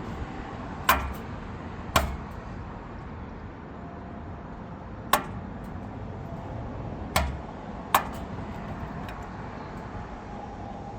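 Five sharp knocks and clacks of parts being handled and fitted while reassembling a Speed Queen washer's brake and pulley assembly, the first two about a second apart, the last two close together near the end, over a steady background noise.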